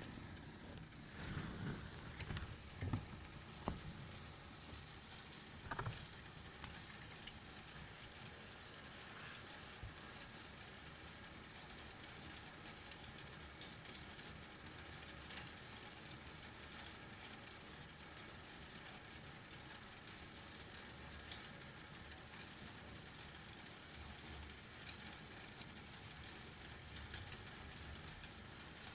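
Steady rain falling, an even hiss of drops, with a few louder knocks in the first six seconds.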